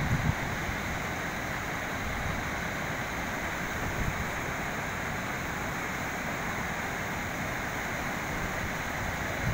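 Steady rushing of river water pouring over a weir, with a few low gusts of wind buffeting the microphone at the start and about four seconds in.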